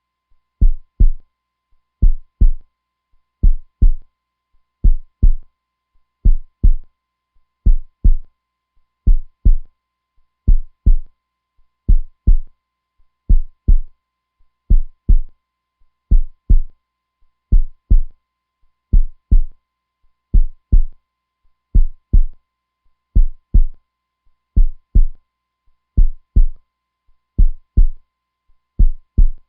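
Heartbeat, strong and steady, each beat a low lub-dub pair, about one pair every second and a half.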